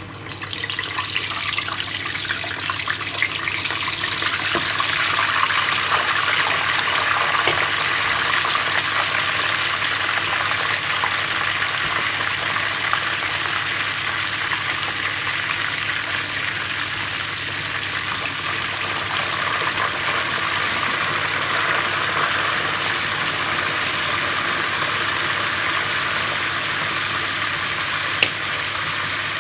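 Marinated chicken thigh deep-frying in a saucepan of oil at 350 degrees: a steady, dense sizzle that builds over the first couple of seconds as the chicken goes in. A single sharp click sounds near the end.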